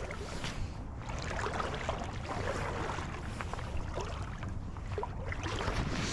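Splashing and sloshing of someone wading through a shallow creek, with irregular crunchy steps over a steady low rumble.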